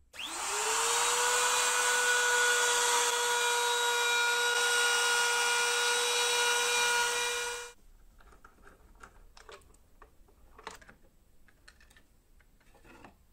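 Compact trim router spinning up with a quick rising whine, then running steadily while it cuts the edge of an acrylic sheet, with a hiss of cutting over the motor; the sound cuts off suddenly after about seven and a half seconds. Faint clicks and knocks of tool handling follow.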